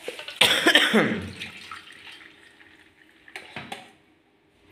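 Frothy sugarcane juice poured from a jug into a stainless steel bowl, splashing loudly for about a second and then trickling away. Two light knocks follow near the end.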